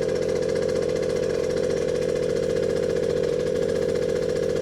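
Suzuki JR50's small two-stroke single running steadily on a newly fitted carburettor. It will not settle to an idle, which the owner thinks calls for the idle screw to be turned up.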